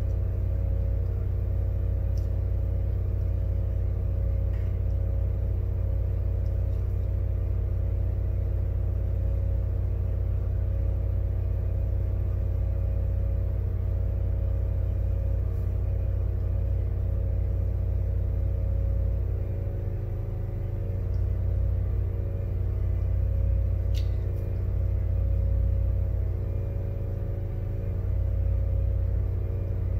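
Steady electric hum and whir of a fan on a soldering bench, with a few faint light ticks from the hand soldering.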